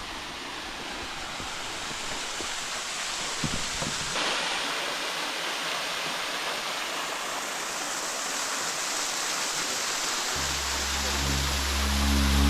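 Waterfall: a steady rush of falling water, growing brighter and fuller about four seconds in. Background music with low held tones comes in near the end.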